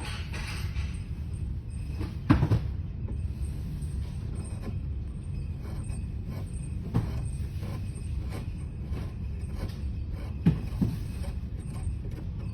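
Workbench handling sounds: a few sharp knocks and light taps over a steady low hum, with a pair of knocks a couple of seconds in and two more near the end.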